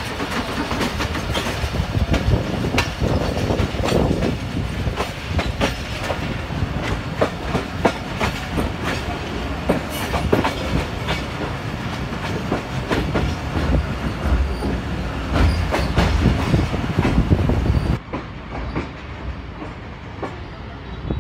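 Passenger train running along the track, heard from an open window of a carriage: steady rumble with wheels clacking over rail joints. About three seconds before the end the sound drops in level and turns duller.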